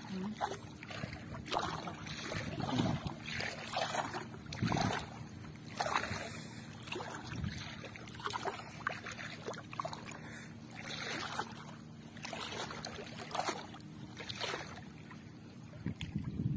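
Gill net being hauled by hand out of the water into a small boat: repeated splashing and dripping about once a second. A faint steady low hum lies under it.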